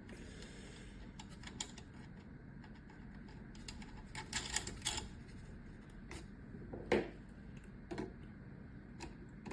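Scattered small clicks and taps of hand work fitting the nut back onto the fan blade's shaft, with a cluster of clicks around the middle and one sharper click about seven seconds in.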